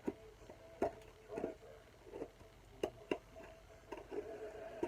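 Irregular clicks and short crinkling rustles of a plastic mailer packet being handled and cut open, over a faint steady hum.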